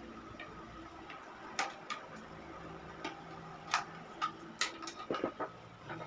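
Irregular sharp clicks and snaps of pliers and a screwdriver on a window air conditioner's plastic selector switch as its wires are worked off, with a quick run of clicks near the end.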